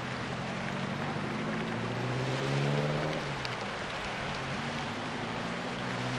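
A boat engine idling steadily, a little louder about two to three seconds in, over a constant hiss of surf.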